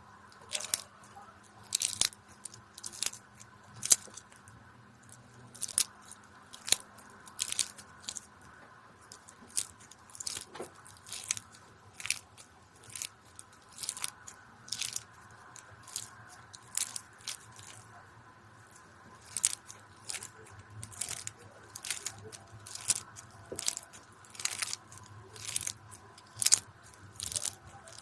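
Slime being pressed and squeezed by hand, giving short crackling bursts of clicks and pops about once a second.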